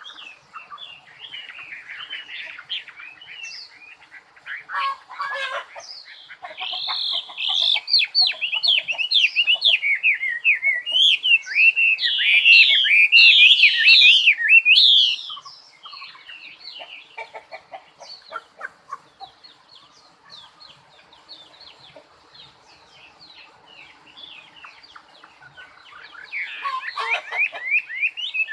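Songbird singing in fast runs of high, quick chirps and trills. The song is loudest through the middle, falls to faint scattered notes, then picks up again near the end.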